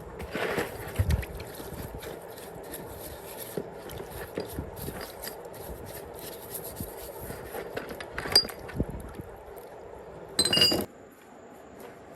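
Metal tools and parts clinking and knocking during repair work, with a louder clank that rings briefly about ten and a half seconds in.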